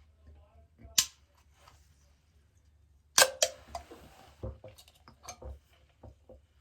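A click about a second in, then the sharp pop of a Red Bull can's pull tab snapping open about three seconds in, with a second-long hiss of the fizzing drink rushing out of the punctured can. Short irregular gulps follow as the drink is shotgunned.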